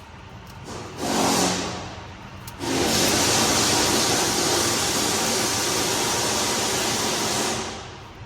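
Compressed-air blow gun hissing. It gives one short blast about a second in, then a long steady blast of about five seconds that stops near the end.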